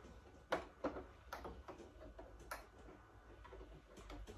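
A few faint, scattered clicks and light handling sounds while the sewing machine is stopped, as plastic sewing clips and fabric are handled at the machine.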